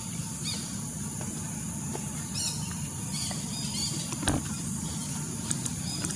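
Outdoor ambience: a steady low rumble with a few short, high chirps now and then, and a single sharp click about four seconds in.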